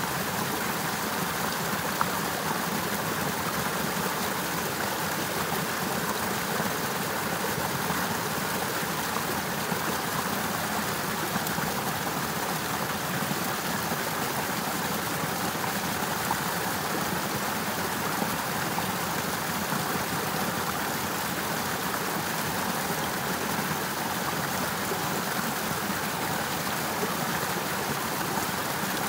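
Water of a partly frozen river running steadily, a constant rushing with no change in level.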